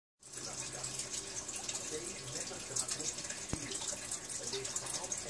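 Eastern box turtle munching lettuce: a steady, crisp crackle of fine ticks, with one sharp click about three and a half seconds in.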